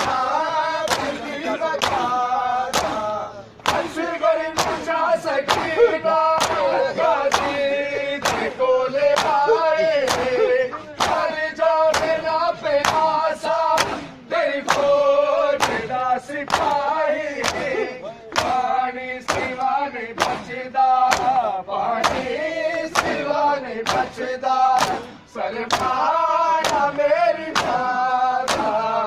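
Matam: a crowd of men slapping their chests in unison with a steady, evenly spaced beat, while men's voices chant a nauha (mourning lament) over the rhythm.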